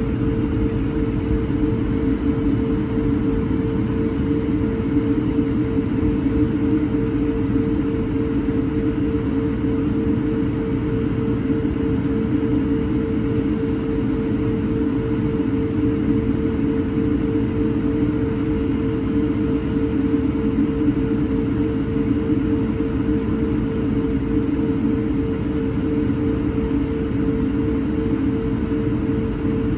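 Airbus A220-300's Pratt & Whitney PW1500G geared turbofan engines running steadily at idle, heard from inside the cabin: a constant hum over a low rumble.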